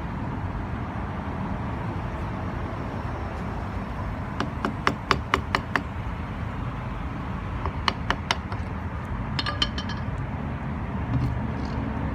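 Hand hammer tapping on a flathead screwdriver or old file set against an old brass thru-hull in a boat transom, collapsing the flare and driving the fitting through. The sharp taps come in three short runs: six or so about four and a half seconds in, a few more around eight seconds, and another handful about a second and a half later.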